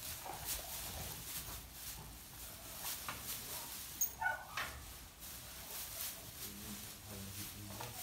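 A dog playing with calves in straw bedding: repeated rustling and scuffling in the straw, a short high-pitched animal sound about four seconds in, and a low drawn-out animal sound near the end.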